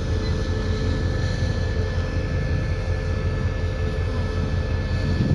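Diesel train engines running steadily at the station, a low pulsing rumble with a faint steady whine above it.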